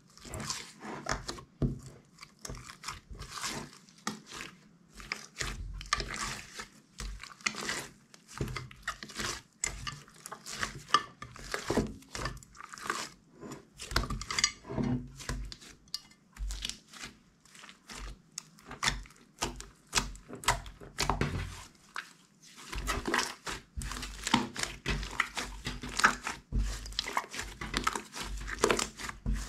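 Hands squishing and kneading slime, giving a dense run of irregular sticky clicks and pops with a couple of short pauses.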